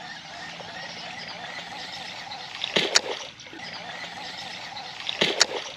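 Water around a fishing kayak: a steady wash of light splashing and rippling, broken by two short, sharp splashy knocks, about three seconds in and again near the end.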